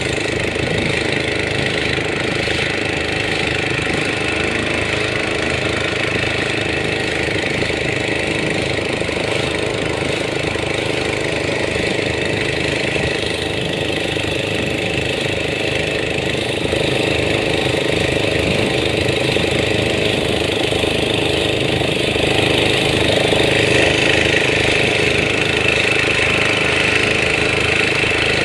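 A small boat's engine running steadily under way, a little louder from about two thirds of the way through.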